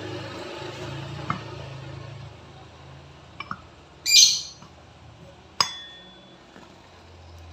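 Metal parts or tools clinking a few times, the sharpest clink about five and a half seconds in leaving a short ringing tone. A brief, loud, shrill high-pitched sound comes about four seconds in, and a low hum fades after the first two seconds.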